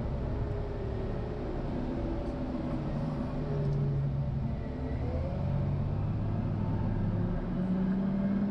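Caterpillar 950GC wheel loader's diesel engine running while plowing snow, its pitch shifting up and down and rising near the end.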